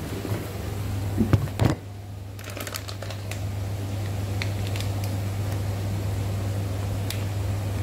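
Steady low hum, with a quick cluster of knocks and clicks about a second and a half in and a few lighter clicks later, from the phone and a spice container being handled.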